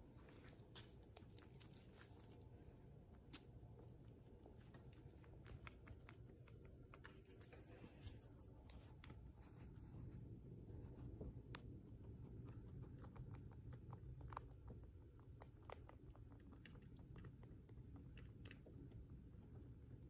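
Guinea pig chewing a vitamin C cookie: faint, irregular crunching clicks over a low steady rumble.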